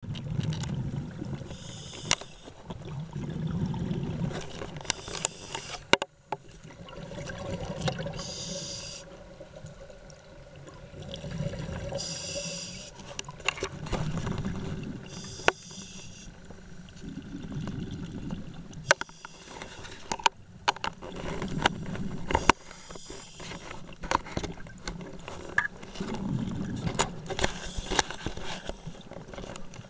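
Scuba regulator breathing heard through an underwater camera housing: a high hiss on each inhale and a low rumble of exhaled bubbles, coming every few seconds, with scattered sharp clicks.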